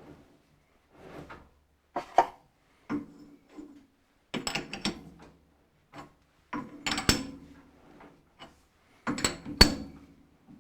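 Tap being turned by hand into a hole in a short, stop-start series of strokes, with rubbing and scraping and a few sharp metallic clicks; the tap is probably bottoming out in the hole.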